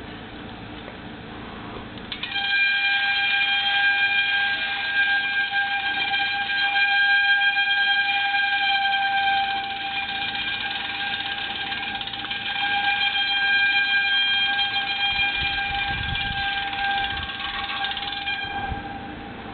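Amateur radio receiver audio: band hiss, then about two seconds in a strong, buzzy Morse code (CW) tone comes in and runs until shortly before the end.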